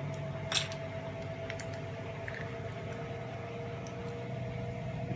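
A few light clicks and taps of small plug parts being handled, one sharper click about half a second in, over a steady low hum.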